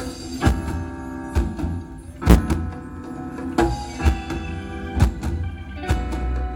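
Live reggae band playing an instrumental passage: drum strokes about once a second over steady bass and held chords.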